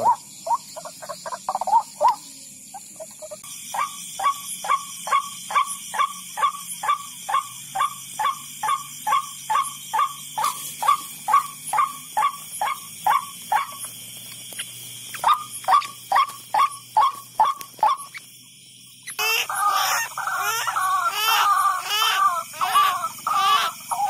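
White-breasted waterhen calls: a long, even series of short 'ruak' notes, about three a second, with a brief break partway. About 19 seconds in it turns into a louder, jumbled chorus of calls.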